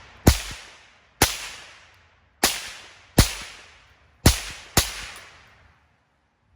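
Savage Model 64 semi-automatic .22 LR rifle firing six shots at an uneven pace, each sharp crack trailing off over about a second.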